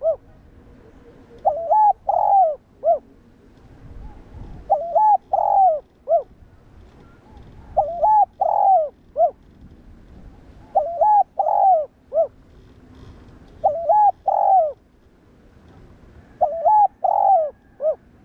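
Spotted dove cooing: a phrase of two short coos, a longer coo and a short final note, repeated about every three seconds, six times over.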